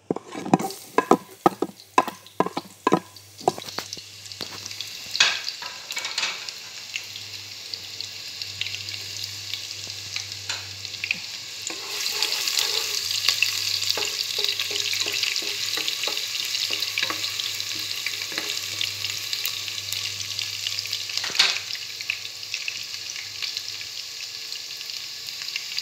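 Chopped onion frying in hot oil in a pot and stirred with a wooden spatula. A quick run of sharp taps and scrapes comes in the first few seconds as the onion goes in. Then a steady sizzle builds and grows louder about halfway through, with an occasional knock of the spatula on the pot.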